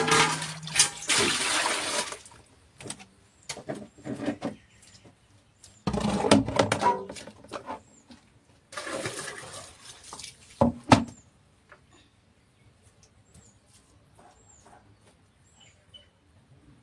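Water scooped from a steel pot and poured out with splashing, in three bursts, followed by a couple of sharp knocks of the vessels.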